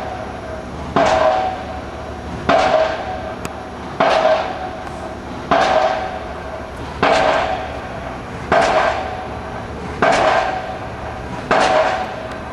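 Impact pile driver striking a pile about once every second and a half, each heavy blow followed by a fading metallic ring, even with sound-muffling equipment fitted.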